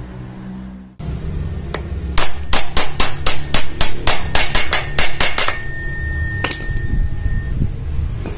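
A hammer striking metal: a quick run of a dozen or so ringing blows, about four a second, then a thin ringing tone and a single further blow.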